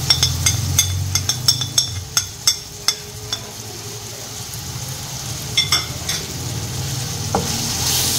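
Onions, tomatoes and powdered spices frying in oil in a metal pot, stirred with a spatula that knocks and scrapes against the pot. A run of sharp clicks, about three a second, comes in the first three seconds, a few more near the end, over a steady sizzle.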